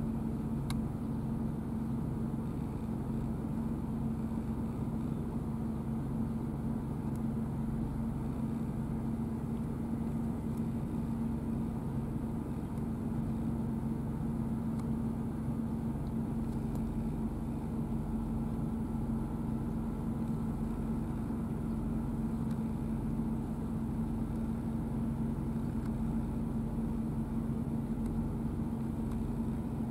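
Case IH STX 375 four-wheel-drive tractor's diesel engine running steadily under load while pulling a tillage disc, a constant low hum that neither rises nor falls.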